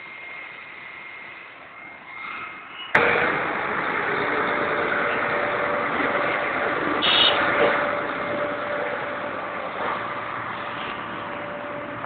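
Steady loud rushing noise of fire engines and hoses spraying water on a burning car, starting abruptly about three seconds in after a quieter stretch with a faint steady whine.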